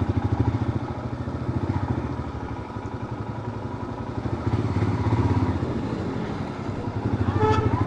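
Motorcycle engine running steadily while riding on the road, with rapid, even firing pulses. A horn sounds briefly near the end.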